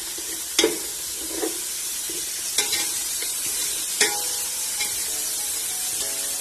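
Chopped onion, grated carrot, coconut and ginger-garlic paste sizzling in hot ghee in a steel pot, stirred with a metal spatula that clinks against the pot three times.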